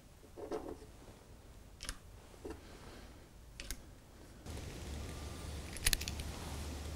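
A few light, separate clicks as cartridges are seated in the cylinder of a CO2 BB revolver and the revolver is handled. About halfway through, a steady low outdoor rumble comes in, and a sharper cluster of clicks sounds near the end.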